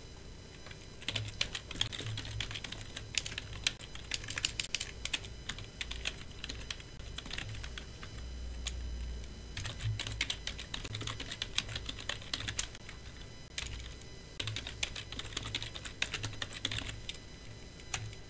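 Typing on a computer keyboard: several bursts of rapid key clicks with short pauses between them.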